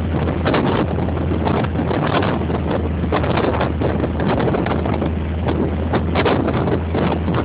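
Car driving along with its engine running at a steady low hum, under a loud rushing wind and road noise that buffets the microphone in irregular gusts, heard from inside the cabin.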